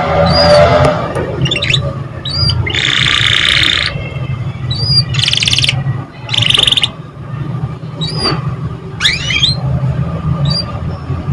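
Domestic canary singing: short rising chirps broken by fast buzzing rolls, the longest lasting about a second, over a steady low hum.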